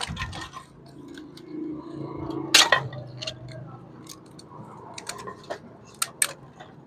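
Handling noise from a gutted CRT television as its copper-wound deflection yoke and wiring are worked loose: scattered clicks and rattles of plastic and metal, the sharpest about two and a half seconds in and a few more near the end.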